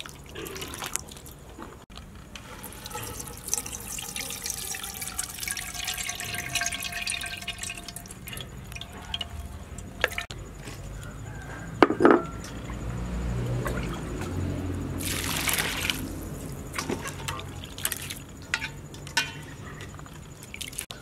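Water pouring and sloshing in a stainless steel bowl as hands squeeze wet flour in it, with a sharp knock about halfway through and a louder splash a few seconds later.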